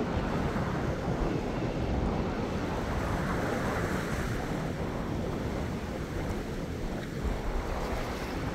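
Small ocean waves washing and splashing against the edge of a rocky reef, one wave breaking up over the reef edge midway. Wind buffets the microphone with a steady low rumble.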